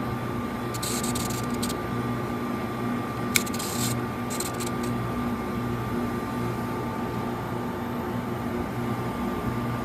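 Walk-in freezer's refrigeration condensing unit running with a steady electrical hum, still in cooling mode because its defrost timer will not switch it into defrost. Brief rattly hisses come about a second in and again about three and a half seconds in.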